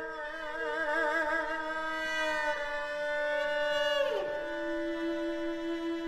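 Erhu and cello playing a slow duo passage. Held notes with vibrato give way, about four seconds in, to a long downward slide that settles on a low sustained note.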